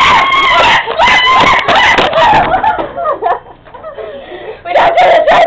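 Children shrieking and squealing in high, wavering voices, loud for the first two and a half seconds, dropping lower for about two seconds, then loud again near the end.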